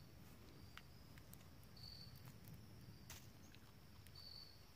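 Near silence in woodland: an insect gives a short high chirp twice, about two seconds apart, over a faint steady insect hum, with a few faint clicks.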